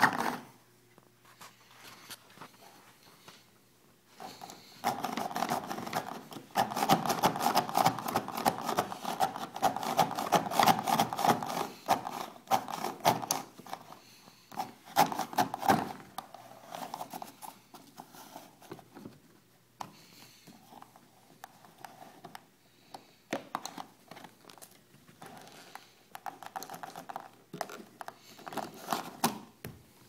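Rapid, irregular clicking and rattling in bursts, busiest and loudest in the first half, then sparser.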